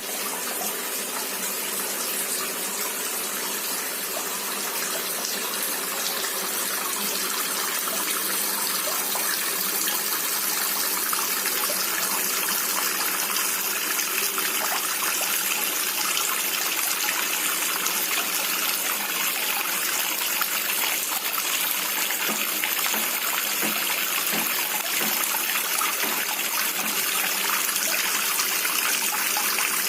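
Water from a small-pump DIY shower fountain falling steadily into a plastic basin: a continuous splashing.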